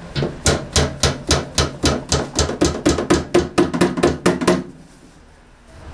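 Rapid, evenly spaced knocks, about four a second, some seventeen in all, stopping abruptly about four and a half seconds in.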